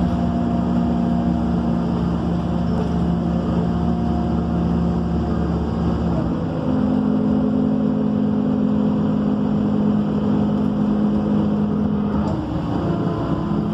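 MAN Lion's City city bus engine and drivetrain heard from inside the cabin while driving: a steady drone carrying several humming tones. About halfway through, the deepest rumble drops out and the hum steps up in pitch, and it shifts again briefly near the end.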